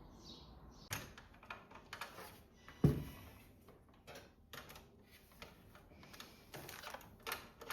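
Irregular clicks and light knocks of cables and plastic connectors being handled inside a PC case, with one louder thump about three seconds in.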